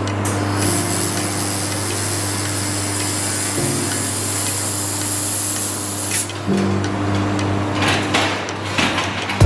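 Handheld fiber laser welding torch at work: a steady hiss with fine crackle that stops about six seconds in. Background music with held chords plays underneath.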